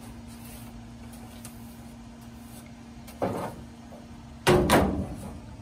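Brush and metal panel of a commercial dryer's lint compartment being knocked about during cleaning: quiet scraping, then two louder metallic clatters about three and four and a half seconds in, over a steady low hum.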